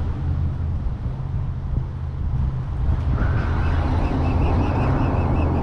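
Steady low drone of a passing motorboat engine over a wash of outdoor noise, with a thin wavering whine joining about three seconds in.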